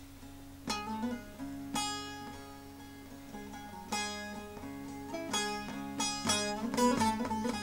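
Bağlama (Turkish long-necked saz) played solo. After a brief pause, a few spaced plucked notes ring out over the low strings sounding on underneath. Quicker runs of notes follow in the second half.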